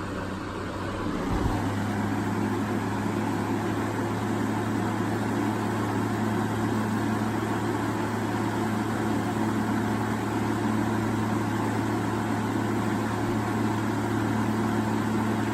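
2003 Holmes Blizzard 12-inch floor fan running on its medium-low speed: a steady motor hum under the rush of air from the blades. It picks up speed about a second and a half in and then runs evenly.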